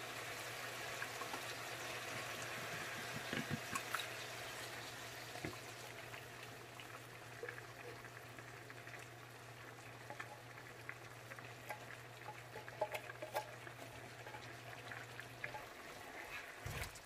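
Chicken wings simmering in coconut milk in a pot, a faint steady bubbling and sizzling with scattered small ticks and pops. A low steady hum runs underneath and stops near the end.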